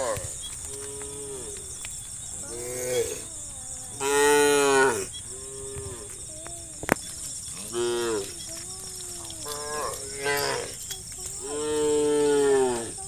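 Several cattle mooing in turn, about eight calls of different pitches, the loudest about four seconds in and near the end. A single sharp click is heard a little past the middle.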